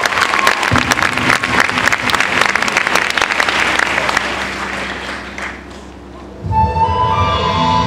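Audience applause that dies away about five seconds in. After a brief lull, the marching band's brass comes in with held notes near the end.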